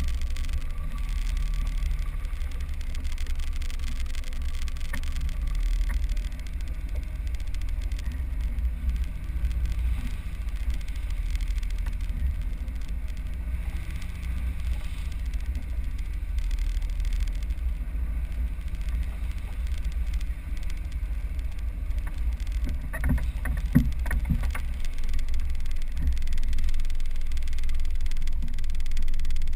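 Steady low rumble of wind and water noise on the bow-mounted camera of an inflatable rescue boat under way on choppy water. A few brief knocks come about three-quarters of the way through.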